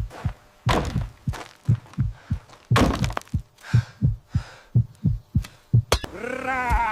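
A steady run of dull low thumps, about three a second, with a few sharper cracks among them. A wavering, pitched cry comes in near the end.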